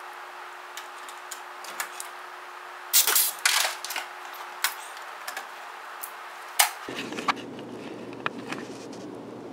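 Sharp clicks and clatter of riveting work on aluminium engine baffles: a pneumatic pop-rivet gun snaps with a short hiss about three seconds in, followed by scattered metal tool clicks, with one loud click near the end. A steady hum runs underneath and gives way to a rougher background noise about seven seconds in.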